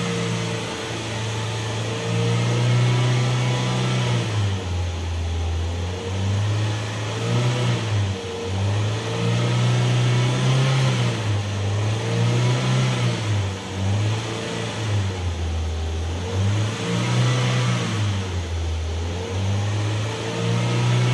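Ford Figo engine revved while parked in neutral: the engine is held at raised revs and falls back several times before being pushed up again.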